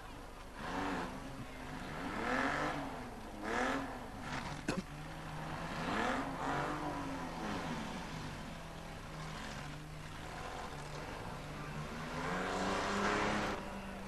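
Demolition derby cars' engines revving up and falling back again and again, about five swells, over a steady engine note, with one sharp knock about five seconds in.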